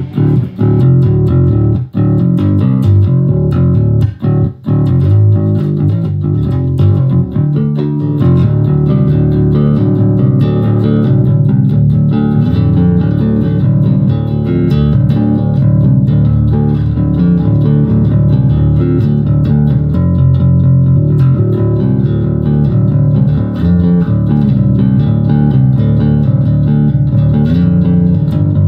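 Electric bass tuned to drop D, a Jackson JS1M, played fingerstyle through a Fender Rumble 25 V3 combo amp with its overdrive engaged. A continuous bass line, broken by short pauses in the first several seconds, then steady.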